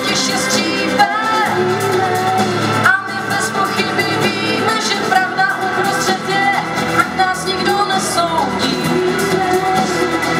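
A woman singing a slow melody with acoustic guitar accompaniment, performed live.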